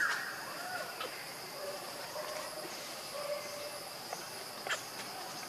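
Steady high droning of insects, with a baby macaque's high, arching cooing call at the very start. A few faint clicks from twigs and dry leaves underfoot.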